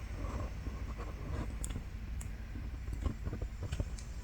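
Faint handling noises: a few light clicks and rustles over a low steady hum, as a diamond-painting canvas is handled.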